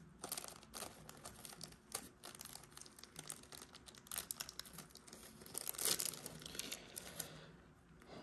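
Plastic packaging crinkling in irregular crackles as a new O-ring is taken out of a carburetor rebuild kit. The crackling is loudest about six seconds in and dies away near the end.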